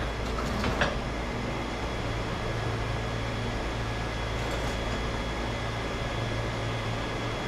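Steady low mechanical hum of shop machinery, like a running fan, with a few light metal clicks about half a second in as the exhaust pipe sections are handled.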